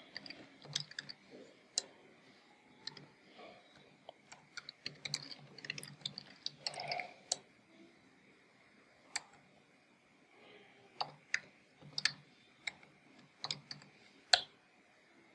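Computer keyboard keys tapped in irregular clusters as code is typed, with a sparse pause in the middle and a sharper, louder keystroke near the end.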